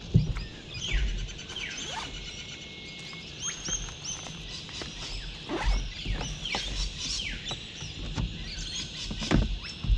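A morning chorus of many birds calling at once: quick falling whistles and chirps that overlap throughout, with a few soft low knocks from gear being handled.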